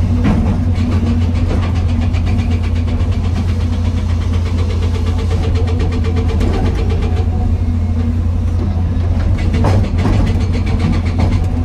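Excavator's diesel engine running steadily with a strong low hum. Two sharp knocks stand out, one just after the start and one near the end.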